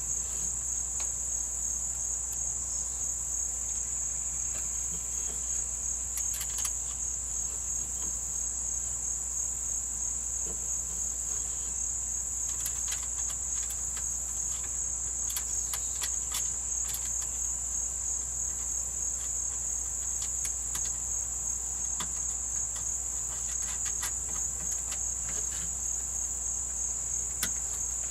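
A steady, high-pitched chorus of crickets, with scattered faint clicks and taps from handling metal parts.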